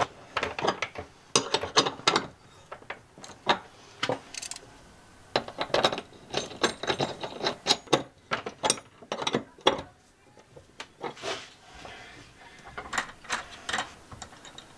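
A wrench turning the nut on a heavy battery-cable lug at a Victron battery monitor shunt: irregular runs of sharp metal clicks and clinks, with the wrench and cable lugs knocking against the brass terminal. The clicking thins out and grows fainter after about ten seconds.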